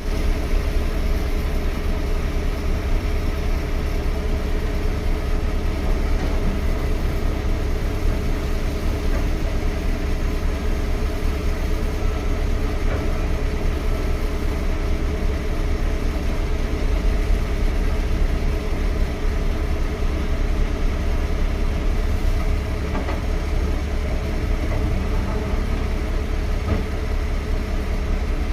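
Heavy diesel engine running steadily at an even speed, its sound strongest at the low end.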